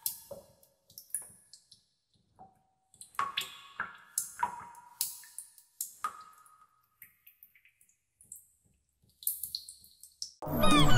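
Water drops dripping one at a time at irregular intervals, each a short plink with a brief pitched ring. Music comes in near the end.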